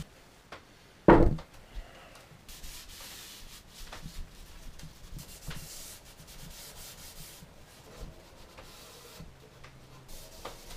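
A cloth rubbing tung oil over a wooden cabinet, a faint steady scrubbing with small clicks as the piece is handled. A single loud knock about a second in.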